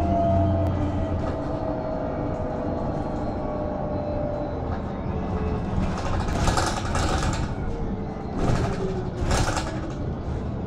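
Cabin noise inside a BredaMenarinibus Avancity+ CNG city bus under way: steady engine and road noise, with a thin whine that slowly falls in pitch over the first few seconds. Two louder rushing bursts come about six and eight and a half seconds in.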